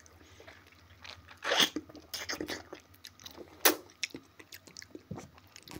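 A person biting into a raw home-grown tomato and chewing it: a few wet crunching bites, the loudest about one and a half and three and a half seconds in.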